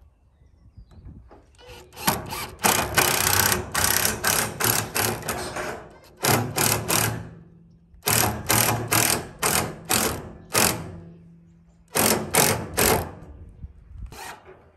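Cordless impact driver hammering as it drives screws into a wooden frame, in four bursts of rapid clatter separated by short pauses, the longest about four seconds.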